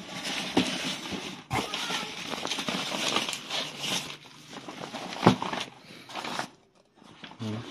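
Wrapping crinkling and rustling as bundles of firecrackers are handled, with a few sharp clicks and knocks, the loudest about five seconds in. It stops about six and a half seconds in.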